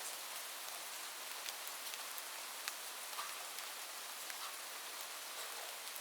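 Light, gentle rain: a steady soft hiss with scattered individual drops ticking on a surface.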